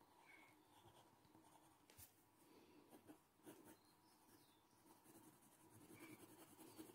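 Faint scratching of a graphite pencil on paper: short, irregular strokes retracing the lines of a drawing, a little busier near the end.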